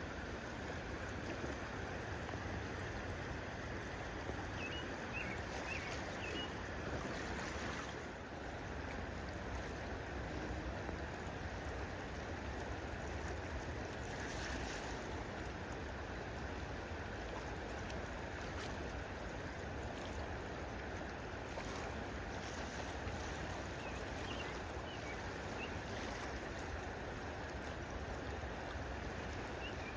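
Steady rushing of running water, like a stream, with a few faint, short high chirps at intervals.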